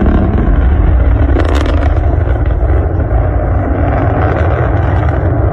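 Rocket engine noise: a loud, steady low rumble.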